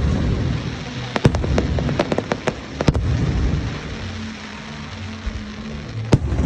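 Fireworks bursting, with sharp bangs and a quick run of crackling pops from about one to three seconds in, then another bang near the end. Orchestral music plays underneath.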